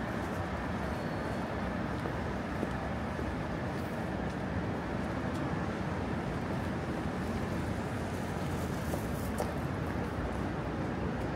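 Steady hum of city road traffic, an even wash of sound with no single vehicle standing out.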